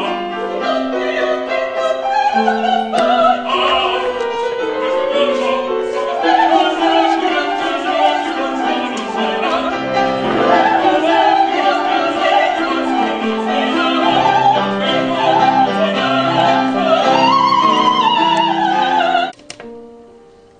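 Operatic singing with piano accompaniment, a classical opera passage with a wavering, vibrato-laden voice line over piano chords. The music breaks off abruptly about a second before the end.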